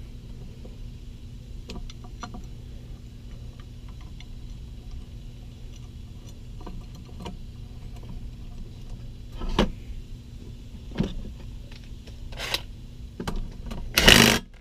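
Light clicks and knocks from a steel bracket being fitted to a power steering pump, over a steady low hum. Near the end a cordless drill runs briefly, driving a bracket bolt.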